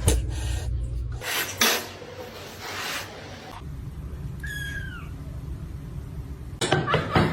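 Domestic cat giving one short, high meow that drops in pitch at its end, about four and a half seconds in, with rustling before it.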